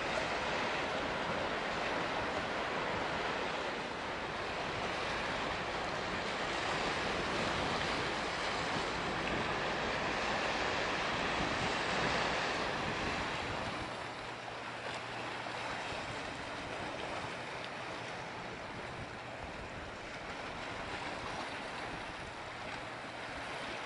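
Strong wind blowing across the microphone, a steady rushing noise that eases a little and loses some of its low rumble about halfway through.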